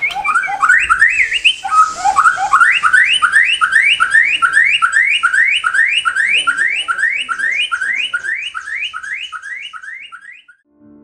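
White-rumped shama (murai batu) singing: a few varied whistled notes, then one rising whistle repeated fast, about three a second, fading away near the end.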